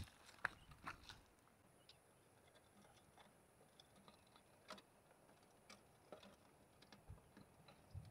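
Near silence, broken by a few faint, scattered small clicks and taps, with a couple of soft low thumps near the end.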